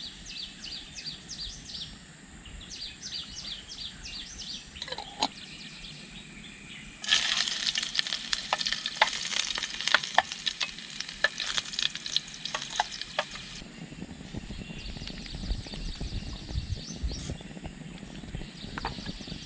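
Chopped ingredients frying in hot cooking oil in a small pan on a portable gas stove, sizzling and crackling as they are stirred with a spatula. The loud sizzle starts about a third of the way in and cuts off sharply a little past the middle, and a quieter sizzle follows. Before it, in the first few seconds, there is a quick series of high chirps.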